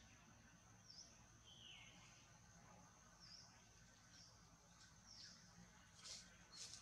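Faint outdoor ambience: a steady high-pitched insect drone, with a handful of short, faint falling chirps and two brief high rustle-like sounds near the end.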